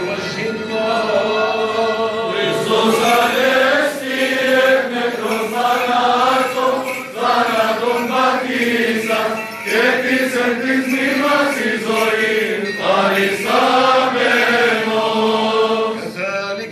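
Byzantine Orthodox Paschal chant sung by men's voices: a steady held low note beneath a winding, melismatic melody line.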